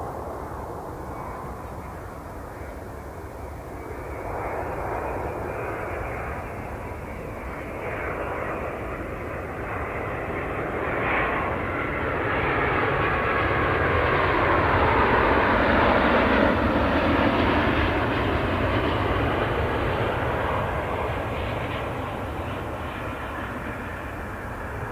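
Jet engines of a Boeing 787-8 airliner on landing, a rising rumble and whine that peaks as the aircraft passes, about two-thirds of the way through, then fades with the whine falling in pitch.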